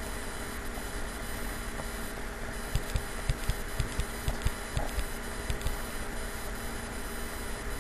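Recording room tone: steady hiss with a faint mains hum, and a run of about ten soft, low thumps, roughly three a second, from about three to six seconds in.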